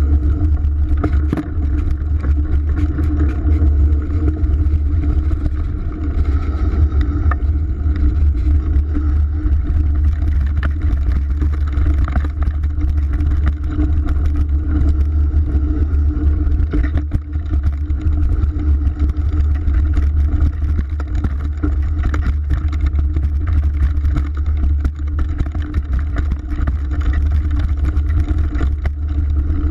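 Mountain bike ridden fast down a dirt trail: a steady heavy rumble of wind and tyres on the microphone, with frequent small rattles and knocks from the bike over the bumps.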